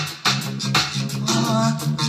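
Reggae music playing from a 12-inch vinyl record: a deep bass line and drum hits, with singing over them in the second half.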